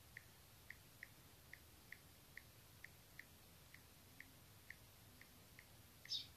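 Faint key-press clicks of an Android phone's on-screen keyboard, one for each letter typed, about two a second, with a brief soft hiss near the end.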